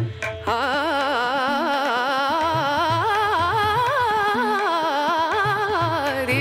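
Background music: a wavering, ornamented melody over a low drum beat, coming in about half a second in after a brief dip.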